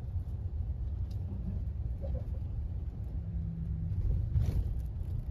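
Steady low rumble of a moving vehicle heard from inside it, with a brief louder bump about four and a half seconds in.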